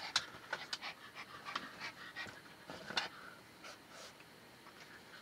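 Pomeranian panting, with irregular short scuffs and clicks from her claws catching on a blanket.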